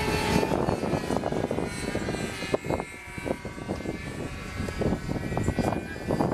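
Radio-controlled model airplane's motor and propeller droning steadily in flight, fading out near the end, with wind buffeting the microphone.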